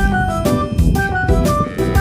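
Background music: an upbeat instrumental with piano or keyboard and a drum kit keeping a steady beat.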